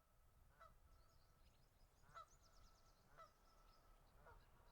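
Faint bird calls: a short call repeated roughly once a second, with fainter high chirps between.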